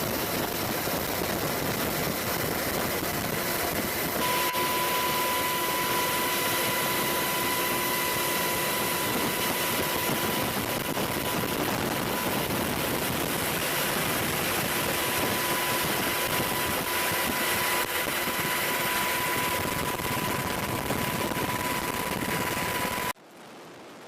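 Military helicopter turbine engines and rotors running steadily. A steady high whine sets in about four seconds in. The sound cuts off suddenly near the end.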